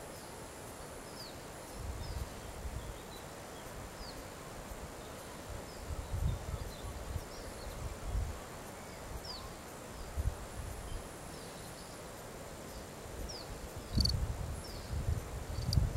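Outdoor wind ambience: irregular gusts of wind rumbling on the microphone, the strongest about fourteen seconds in, with scattered faint, short, high chirps that glide downward.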